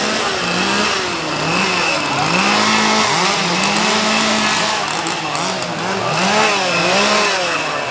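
Two-stroke chainsaw engine revved up and down again and again, its pitch rising and falling about once a second.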